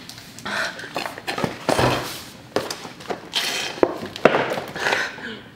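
Footsteps, knocks and rustling of a person moving back to a table and sitting down while handling a small milk carton: a run of irregular short noises and thuds.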